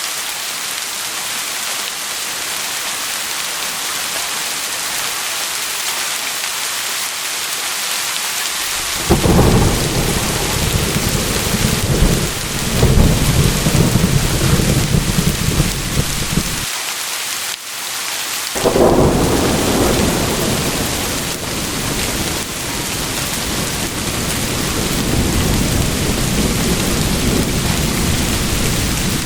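Steady rain with rolling thunder. A deep rumble breaks in about a third of the way through and surges several times. It cuts off briefly, rolls back in and slowly dies away under the rain.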